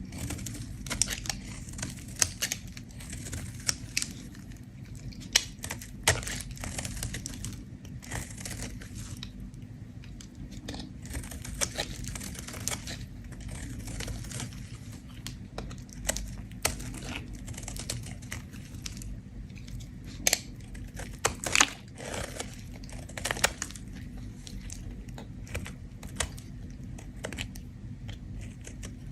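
Bar of soap being scraped with a blade: dry, crackly scraping with many scattered sharp clicks.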